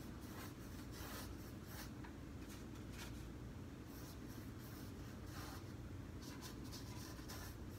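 Faint strokes of a flat paintbrush working paint onto a canvas: a run of short, soft scrapes over a low steady room hum.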